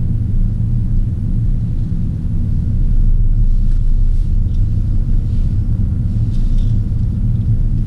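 Steady low rumble of a Porsche Cayenne on the move: road and engine noise heard from inside the cabin.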